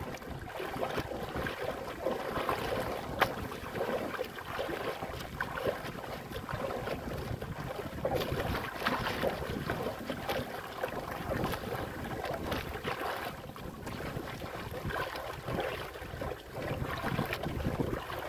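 Choppy waves splashing and slapping against the hull of a small wooden outrigger boat, with wind buffeting the microphone. A single sharp knock about three seconds in.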